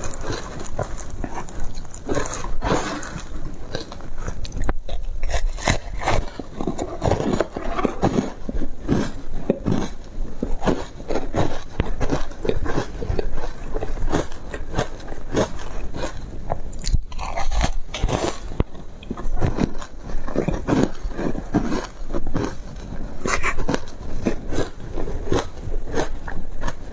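Close-miked crunching and chewing of foam ice: rapid, irregular crunches one after another, with no pause.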